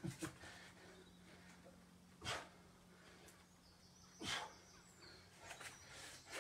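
A man breathing out hard during press-ups: two short, sharp exhalations about two seconds apart.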